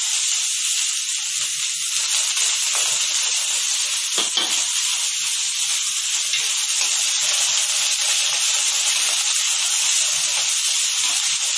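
Sliced onions sizzling in hot oil in a kadhai, a steady hiss, while a steel spoon stirs them; one short spoon-on-pan sound about four seconds in.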